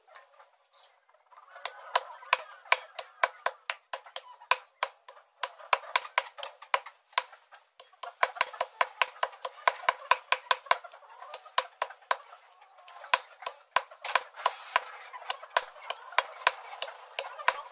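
A meat cleaver chopping raw chicken on a thick wooden chopping block, fast repeated chops several a second. They start about two seconds in, with a couple of brief pauses.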